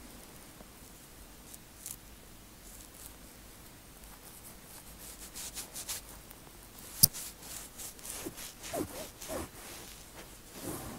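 Fingertips scratching and rubbing an oiled scalp between tight 4C cornrows, in soft, scratchy strokes. A sharp click comes about seven seconds in, and a few short squeaks follow near the end.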